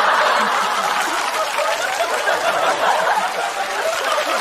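Studio audience laughing and clapping, loudest at the start and slowly easing off.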